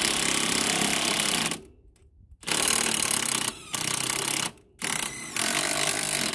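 Cordless impact wrench hammering on a rusted alternator bolt. It runs in about five bursts of roughly a second each, with short pauses between trigger pulls.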